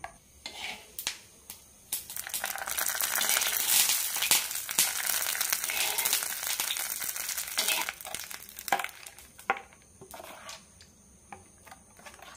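Hot oil with mustard seeds and curry leaves sizzling for about six seconds as a tempering is added to coconut chutney. Near the end, a spoon scrapes and clinks in a steel bowl as it is stirred in.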